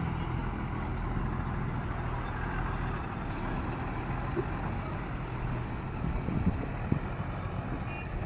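Bus diesel engine running at low speed as the bus manoeuvres slowly, a steady low hum. A couple of short knocks come late on.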